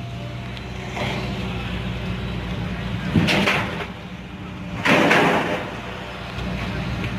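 A vehicle's engine drone, steady and low, with two loud, short noisy bursts about three and five seconds in.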